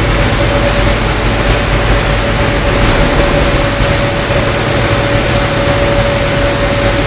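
Rotary drum dryer running with palm sawdust tumbling through it: a steady, loud machine noise, a low rumble and hiss with one constant whining tone above it.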